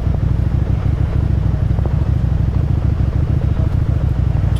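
Motorcycle engine and exhaust running at a steady throttle while riding, a dense low pulse that holds an even pitch.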